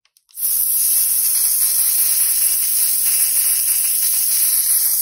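Spray paint hissing steadily from the nozzle as gold metallic paint is sprayed onto small scale-model wheels, starting about half a second in.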